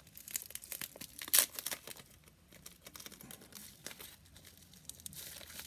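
Mail packaging being opened by hand: irregular crinkling and rustling, with a sharper tearing crackle about a second and a half in.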